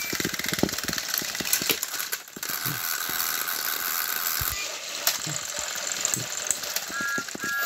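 Battery-powered Thomas & Friends toy engines pushing head to head on plastic track, their small motors whirring with many quick rattling clicks from the gears and wheels.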